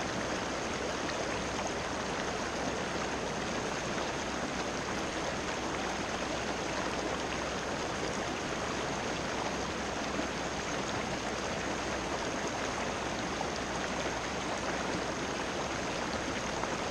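Steady rushing of shallow river water running over rocks, an even, unbroken rush with no distinct events.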